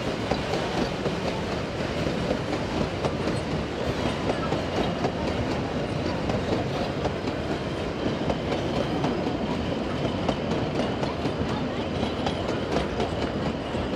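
Narrow-gauge railway passenger carriages rolling steadily past close by, their wheels clicking and rattling over the rail joints in a continuous clickety-clack.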